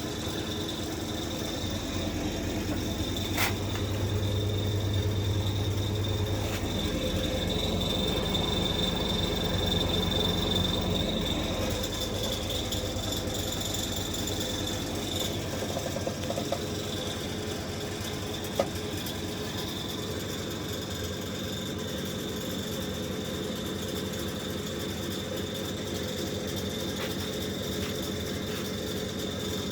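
Angle grinder running steadily while cutting steel, a constant motor sound with a high whine.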